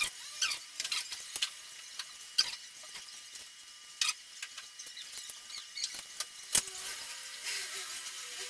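Irregular light clicks, taps and small scrapes of a small hand tool and fingers working on a DJI Phantom 4 drone's plastic shell, with a few faint short squeaks; the loudest click comes about six and a half seconds in.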